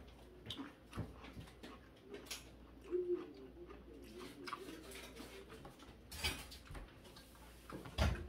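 Table noises during a meal: scattered light clicks and knocks of chopsticks, a toothpick and dishes, with a louder knock about six seconds in and another near the end. A faint low murmur comes through about three seconds in.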